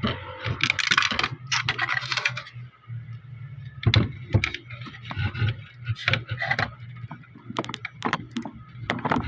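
Small plastic toy parts being handled and fitted together. Dense rustling and clicking for the first couple of seconds, then scattered separate clicks and taps.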